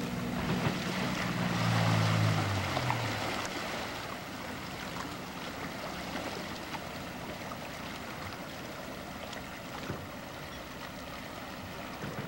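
Honda 50 HP four-stroke outboard on an aluminium mini tugboat running nearby, its tone dropping in pitch and fading over the first three seconds, with the rush of its wake. After that, a quieter steady wash of water and wind.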